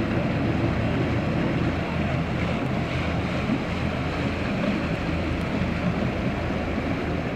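A motor boat's engine running steadily as the boat passes close by, with wind blowing on the microphone and the sound of water.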